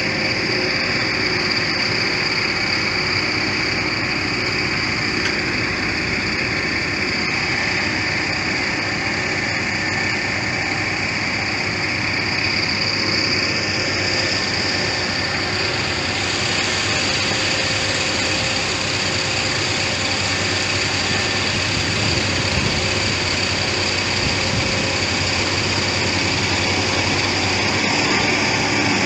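Heavy construction machinery running steadily: a continuous engine drone with a high, even whine over it.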